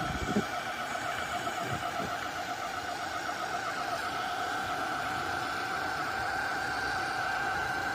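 1/10-scale RC crawler's Hobbywing Fusion SE 1200kv brushless motor and geartrain whining steadily as the truck crawls through deep snow, the pitch rising slightly near the end. A low thump comes just after the start.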